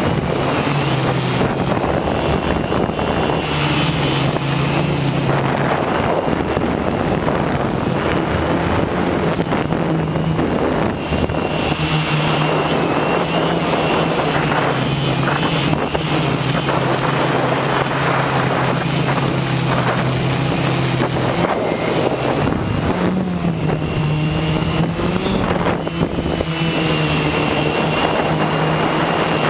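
FPV quadcopter's electric motors and propellers buzzing steadily, heard from on board the drone, the pitch rising and falling as the throttle changes.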